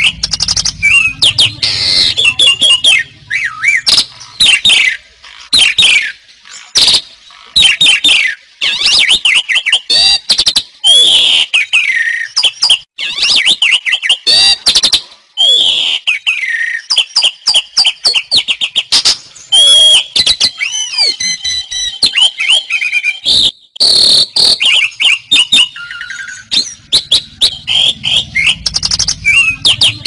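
Asian pied starling (jalak suren) singing continuously and vigorously: a dense, varied run of clear whistles, sliding notes, rattling chatter and squawks with hardly a pause.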